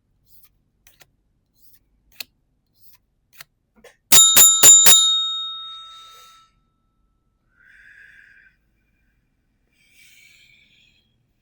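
A small bell rung four times in quick succession, its ring dying away over about a second and a half after the last strike. Faint clicks come before it and soft rustling after.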